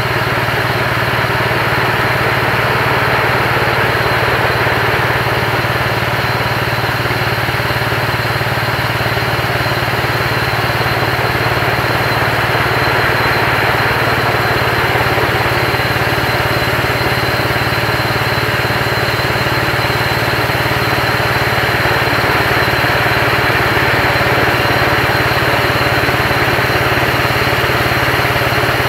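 Portable band sawmill's engine running steadily under load as the saw head moves along the rails and the band blade cuts through a log.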